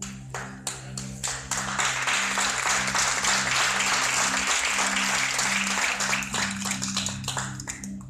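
Applause from a group clapping: a few separate claps, then dense steady clapping that thins out near the end. Steady background music tones run underneath.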